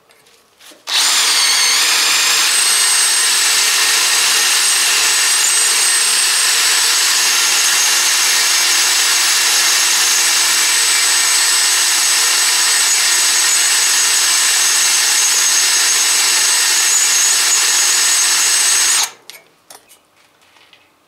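Power drill with a small twist bit drilling into a broken steel exhaust stud in a cast-iron exhaust manifold. It runs at one steady speed with a high whine for about eighteen seconds, starting about a second in and stopping near the end.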